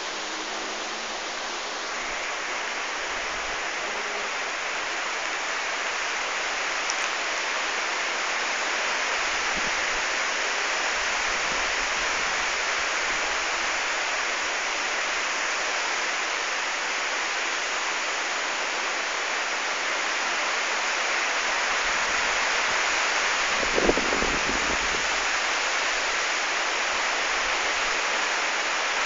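Heavy rain falling steadily on trees and foliage, a dense even hiss. A single short low thump about five seconds before the end.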